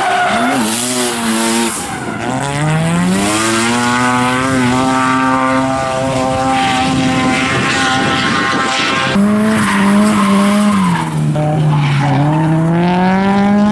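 Drift cars sliding under power: engines held high in the revs, their pitch rising and falling as the drivers modulate the throttle, over the noise of spinning, skidding tyres. The engine note changes abruptly about nine seconds in.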